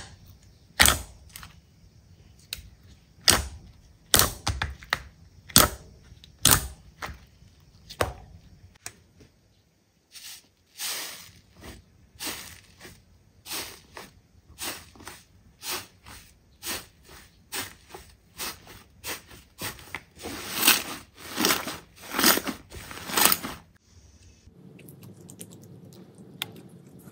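Slime being squeezed and poked, giving a run of sharp pops and crackles: irregular at first, then steady at about one or two a second, loudest just before they stop near the end.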